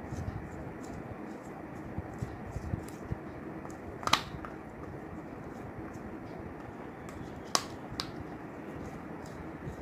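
Glue-and-baking-soda slime being stirred in a bowl: a run of faint clicks and taps, with a sharp click about four seconds in and two more a little before and at eight seconds, over a steady low background noise.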